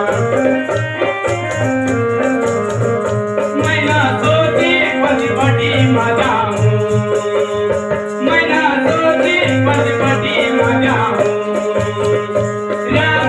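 Hindi song music with a steady percussion beat. A wavering melody line comes in about four seconds in and again about eight seconds in.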